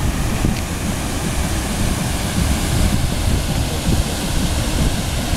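Steady rushing roar of a waterfall pouring over a concrete dam spillway, with wind buffeting the microphone.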